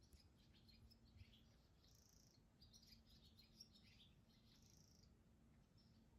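Faint, busy twittering of barn swallows, many short chirps in quick succession, over a faint steady hum.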